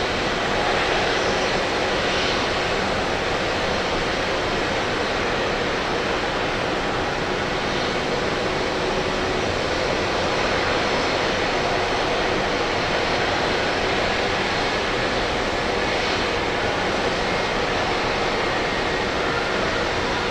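Airbus A330-243's Rolls-Royce Trent 772 jet engines, a steady, loud jet roar.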